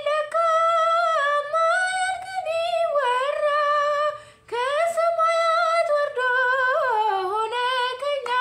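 A woman singing an Amharic Orthodox hymn (mezmur) unaccompanied, drawing out long notes that slide up and down. There is a short breath about halfway through.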